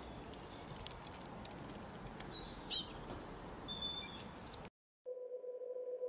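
Small songbird chirping: two bursts of quick, high, falling notes over a steady outdoor hiss. The sound cuts off abruptly after about four and a half seconds, and a steady electronic tone starts just after.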